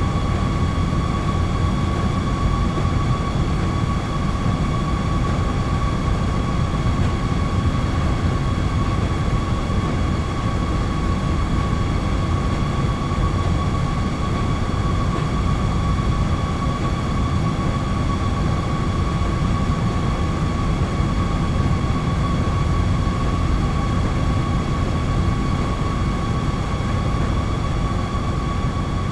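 Boiler room machinery running: a steady low rumble with a constant high-pitched hum over it, unchanging throughout.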